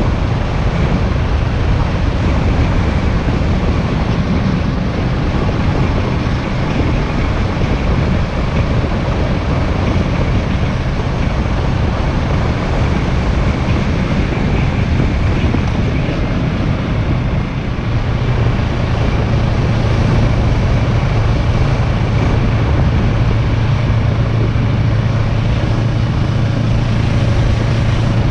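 Motorcycle engine running while riding along, mixed with wind noise on the microphone. A little past halfway the sound dips briefly, then a steady low hum holds.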